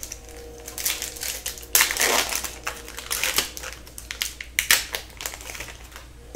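Foil wrapper of an Upper Deck hockey card pack being torn open and crumpled. It crinkles in several bursts, loudest about two seconds in, with more crackling about a second and three seconds later.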